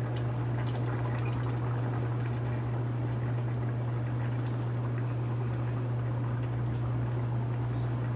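Curry simmering in a stainless steel sauté pan on an induction cooktop: a soft, even bubbling over a constant low hum.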